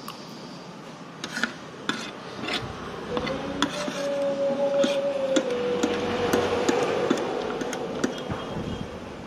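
Metal spoon and fork clinking and scraping on a plate during eating, in scattered short clicks. A steady drone swells in the middle, drops slightly in pitch and fades again.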